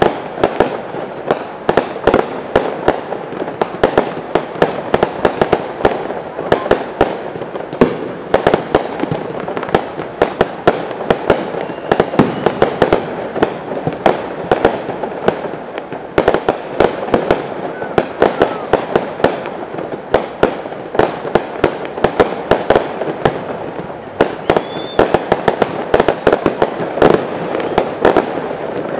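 An aerial fireworks display in a rapid, continuous barrage: many sharp bangs a second, overlapping, with no pause between them.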